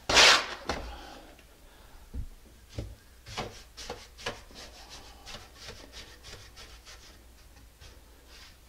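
Flat steel trowel spreading and smoothing wet mortar over a wooden subfloor. A loud scrape at the start, then a run of short, softer scraping strokes, a little faster than one a second.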